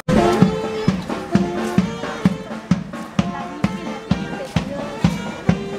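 Background music with a steady drum-kit beat of about two hits a second, with pitched instrument lines over it. It cuts in abruptly at the start.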